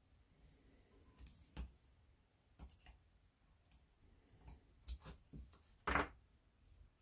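Light metallic clicks and taps of a thin steel rod pressing on the circlip inside the bore of a Honda CB750 front brake master cylinder, checking that the clip is seated. The taps come irregularly, with one louder knock about six seconds in.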